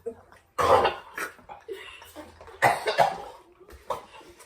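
A person coughing: two loud coughs about two seconds apart.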